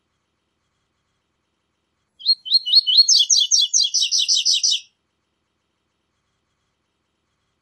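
Double-collared seedeater (coleiro) singing one phrase of the 'tui tui zel zel' song, about two and a half seconds long and starting about two seconds in. It is a string of quick, repeated high notes that come faster and louder towards the end.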